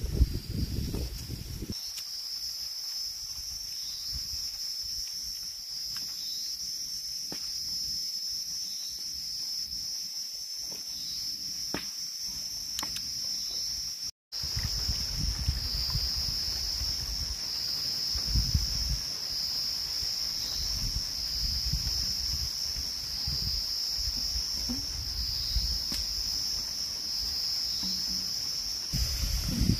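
Insects chirring in a steady high-pitched drone with a faint regular pulse. Low thuds and rumble join in the second half.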